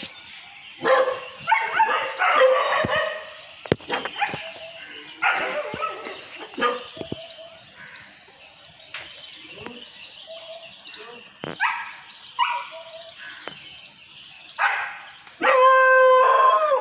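Dogs in a scuffle, barking and yelping in short, irregular bursts. Near the end a loud, long, steady-pitched call or tone holds for about a second and a half.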